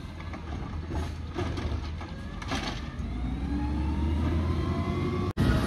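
Scorpion garbage truck working a wheelie bin at the curb: a few clanking knocks over the low hum of its engine, then the engine revs up with a steadily rising pitch. The sound cuts off abruptly near the end.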